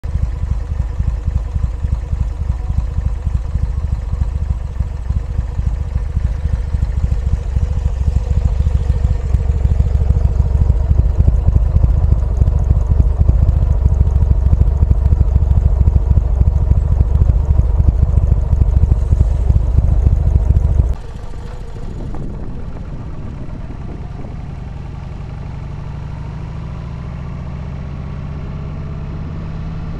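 Loud low rumble for about twenty seconds, then it cuts off and a quieter motorcycle engine runs under way, its note rising slowly as it pulls.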